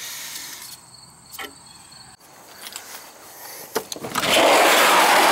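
A couple of faint clicks, then about four seconds in a work van's sliding door rolls open on its track with a loud rushing slide lasting under two seconds.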